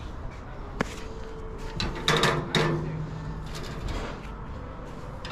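Knocks and clunks of scrap metal being handled: one sharp knock about a second in, then two louder clunks a little after two seconds.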